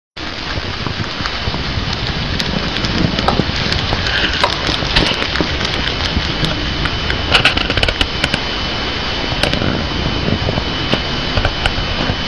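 Syrian hamster chewing a piece of bok choy, with scattered small crunching clicks that bunch up now and then, over a steady hiss and a thin high whine.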